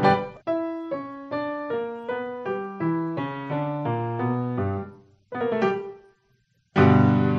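Solo piano music: a run of single notes with bass, about two to three notes a second, then a pause of about half a second and a loud held chord near the end.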